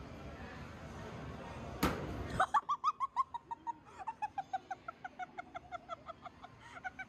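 A sharp knock about two seconds in, then a long run of high-pitched laughter, about five short pulses a second, that slowly falls in pitch.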